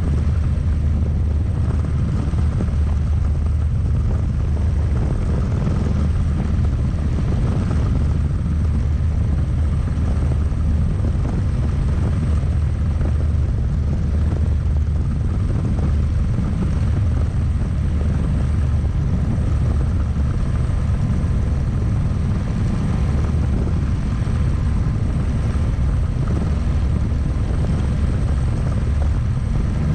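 Single-seat turbine-powered experimental helicopter in steady forward flight, heard from inside the cockpit: a constant deep rotor drone with a thin, steady high whine over it.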